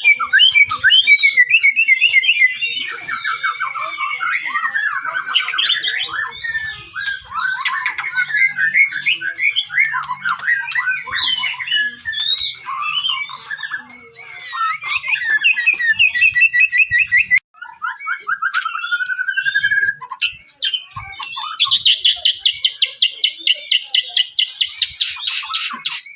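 White-rumped shama (murai batu) singing a long, varied song of quick whistles, slurred glides and trills, with a brief pause midway. For the last few seconds it delivers a fast, harsh rattling phrase.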